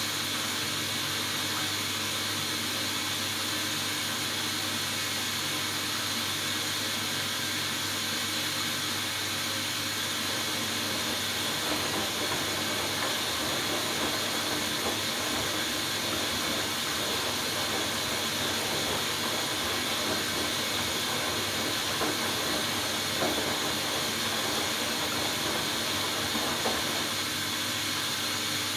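Hoover Dynamic Next DXA610IW3 washing machine during its final rinse: a steady hiss of water with a low hum underneath, with a few small irregular noises in the second half.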